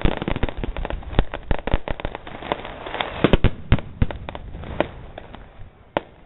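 Fireworks going off: a rapid, irregular string of sharp bangs and cracks, dense at first and thinning out over the last couple of seconds.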